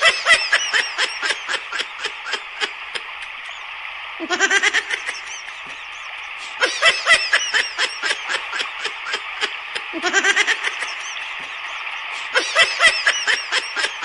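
A woman laughing hard in repeated fits of quick 'ha-ha-ha' pulses, five bouts in all, over a steady hiss.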